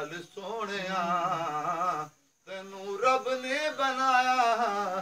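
A man singing Punjabi devotional verse unaccompanied, in long wavering held notes. It comes in two phrases with a short complete break about two seconds in.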